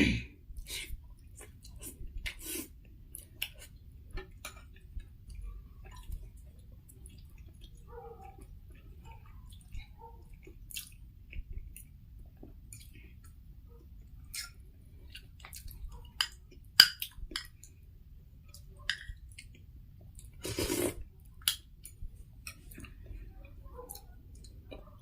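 A person eating on close microphone: chewing and wet mouth sounds with many small scattered clicks, and one louder, longer smacking sound about twenty seconds in.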